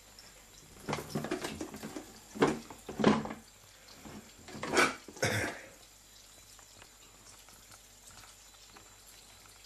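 Kitchen tap running a thin stream of water into a bowl in the sink, a faint steady trickle. In the first half come a handful of knocks and thumps, the loudest about three and five seconds in, as a cat steps off the stainless-steel sink onto the worktop.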